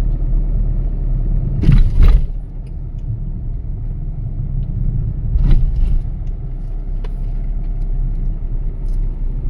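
Steady low rumble of a car driving, heard from inside, with a loud thump about two seconds in and a smaller one a little past halfway.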